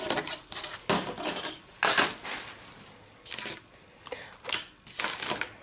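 Small plastic toys knocking and sliding on a wooden tabletop as they are gathered up and cleared away, in a few irregular clatters and scrapes.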